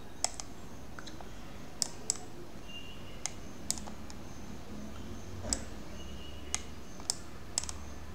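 About ten irregular, sharp clicks from the pointing device used to handwrite on the computer screen, over a faint steady low hum.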